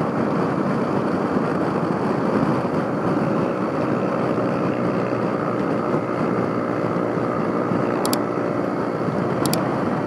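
Honda Africa Twin motorcycle riding at a steady speed: the engine running evenly under wind and road noise on the bike-mounted microphone. Two short clicks near the end.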